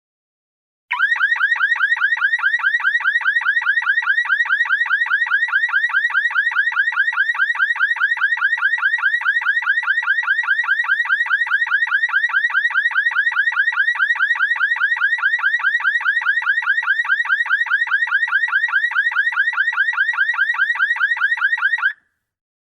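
Electronic alarm tone with a fast, even warble, repeating without change for about twenty seconds, then cutting off suddenly.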